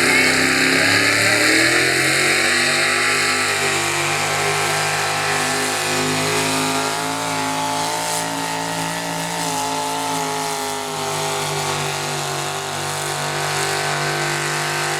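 Pickup truck engine running at full throttle under load during a sled pull. The revs climb over the first two seconds, then hold high and steady, sagging slightly around the middle.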